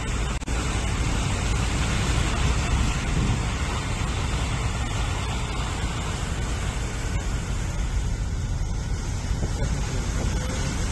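Steady rushing, rumbling outdoor noise of flooded city streets, with vehicle traffic moving through the water. It is strongest in the low end and has no distinct events.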